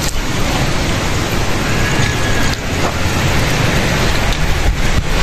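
Wind blowing on the microphone: a loud, steady noise with a heavy low rumble.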